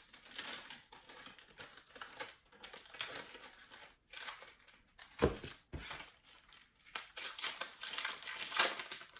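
Trading-card pack wrapper crinkling and rustling as it is handled and opened, with a short low thump about five seconds in.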